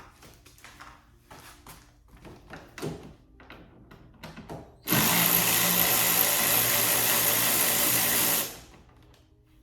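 Light clicks and rubbing of parts being handled, then a power tool runs steadily and loudly for about three and a half seconds before stopping.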